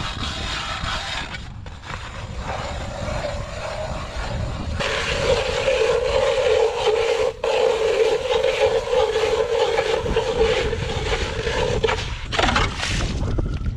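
Hand-cranked ice auger boring through lake ice: a continuous grinding scrape of the blades cutting, getting louder about five seconds in, with a brief break about halfway through.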